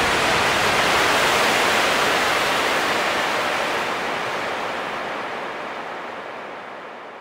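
A loud, even rushing noise, steady at first and then fading away gradually over the last three or four seconds.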